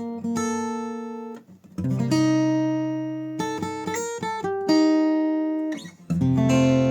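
Newtone Gypsy Road GA 45 acoustic guitar played unplugged, its own body sound without a pickup: chords struck and left to ring out, each fading away, with a brief break about a second and a half in and another near the end.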